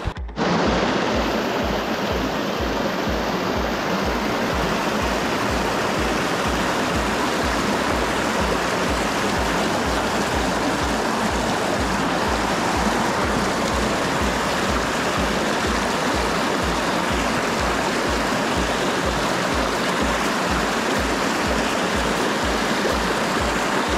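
Steady rush of water in a small stream, setting in suddenly at the very start, with a low, even beat of background music underneath.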